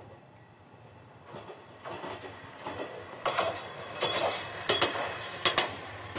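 Electric train passing, growing louder from about a second in, with the clack of its wheels over the rail joints loudest in the second half.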